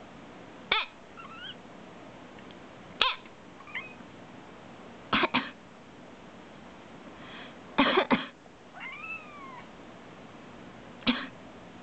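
A person gives short, deliberate coughs, about five bouts, some of them double or triple. After most of them a house cat answers with a brief, quieter meow or chirp that rises and falls in pitch.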